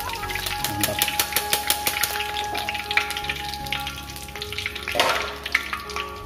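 Hot deep-frying oil in an aluminium wok crackling and sizzling with quick, irregular pops, swelling into a louder burst of sizzling about five seconds in.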